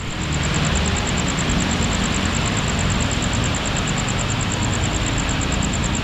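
Diesel locomotive approaching the station with a steady low engine rumble under a broad, even noise. A high, fast, even pulsing sounds in the background.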